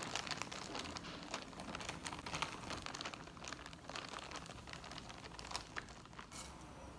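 Faint, irregular crackling and light clicks of crunchy snack chips in a glass bowl being handled and eaten close to the microphone.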